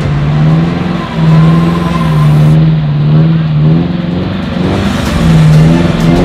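Off-road 4x4's engine revving hard in waves as it drives through deep mud, the pitch rising, dipping and climbing again as the throttle is worked.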